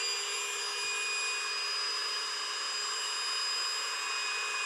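Small electric air pump running steadily with a high whine, inflating a vinyl pool.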